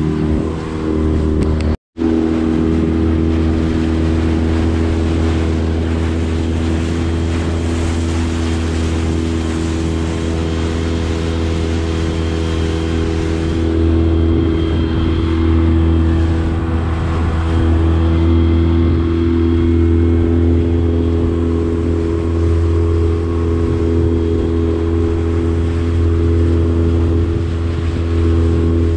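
Small outboard motor on an inflatable dinghy running steadily at speed, with water rushing and spraying past the hull. The sound cuts out for an instant about two seconds in.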